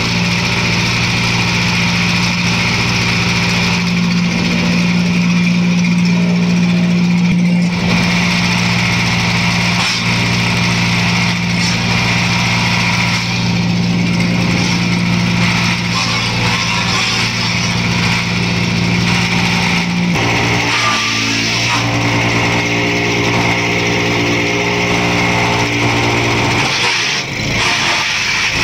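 Compact 12 hp wood chipper-shredder running continuously, its engine note steady under the noise of the chipping drum, with branches and fronds being fed in and shredded. The engine note shifts about two-thirds of the way through, and there is a brief dip near the end.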